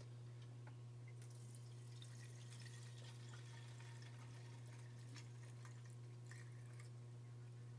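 Near silence: a steady low hum with faint scattered ticks.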